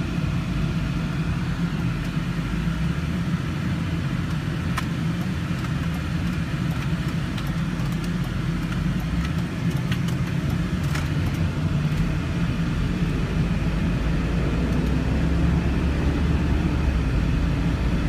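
Cabin sound of a 2002 Ford Thunderbird being driven: a steady low rumble from its V8 engine and the road. The engine note rises as the car accelerates hard in the last few seconds.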